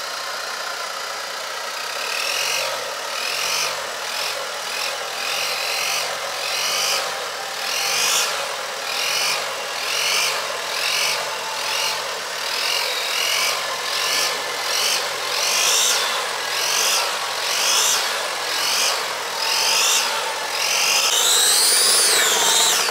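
Vehicle winch motor running under load, its whine rising and falling about once a second and climbing higher near the end, with an engine idling underneath.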